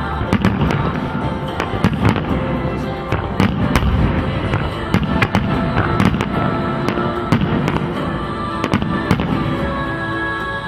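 Aerial firework shells bursting in a dense, irregular string of bangs, several a second, one after another without a break.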